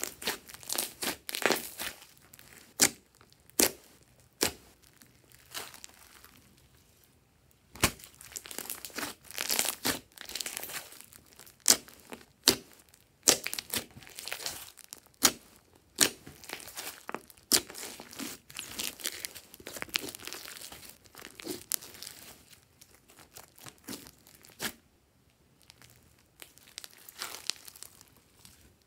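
Hands squeezing and kneading thick glossy slime, giving irregular sticky clicks and crackles, with short pauses between handfuls.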